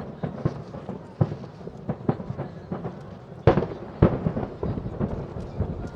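Aerial fireworks shells bursting in quick succession, a string of sharp bangs with echoing tails; the two loudest bangs come about three and a half and four seconds in.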